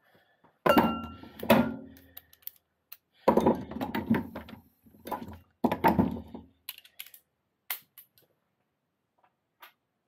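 Metal hand tools and parts clattering and clinking as they are handled and set down on a workbench. The sound comes in several bursts over the first six or so seconds, followed by a few light clicks.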